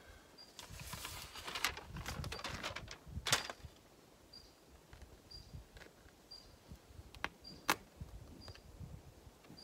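Window flashing tape crinkling and rustling as it is handled and pressed onto the window frame, for about two seconds early on, with a couple of sharp clicks later. A faint high chirp repeats about every three-quarters of a second throughout.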